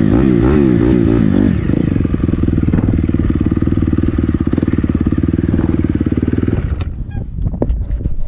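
Small engine running close by. Its pitch wavers quickly up and down at first, then settles into an even, rapid putter. It cuts off suddenly about two-thirds of the way in, followed by scattered clicks and knocks.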